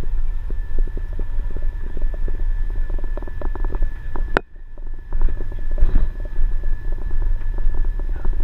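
Low rumble of wind and travel noise on a moving camera, with many small irregular rattles and knocks and a faint steady high whine. One sharp click comes a little over four seconds in, followed by a brief dip in the noise.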